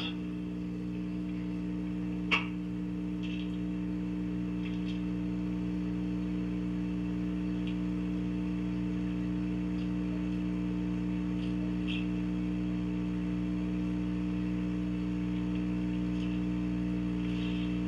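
Steady electrical hum on a recorded phone call with no one talking, broken by a brief click about two seconds in and a few faint ticks.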